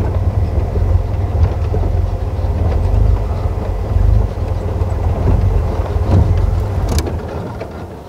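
Open safari vehicle driving slowly on a dirt track: a steady low engine rumble with body rattles, easing off somewhat near the end.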